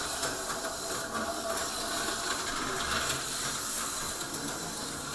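HO-scale slot cars running on a plastic track: a steady whirring hiss of small electric motors and wheels, with a faint steady whine.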